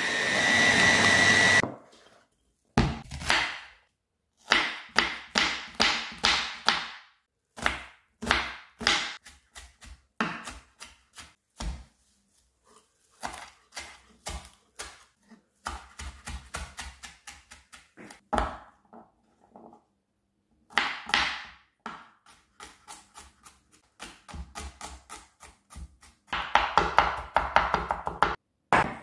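An electric hand blender's chopper attachment runs with a steady whine, grinding soaked chickpeas, and stops about two seconds in. After it, a kitchen knife chops on a wooden cutting board in runs of quick strikes, through parsley and then garlic, with the fastest run near the end.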